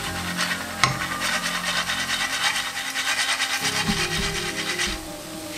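Fast, even rasping of a spoon rubbed back and forth against a metal perforated ladle (jhara), the usual way to push boondi batter through the holes into hot oil. It stops about a second before the end, and there is one sharp click about a second in.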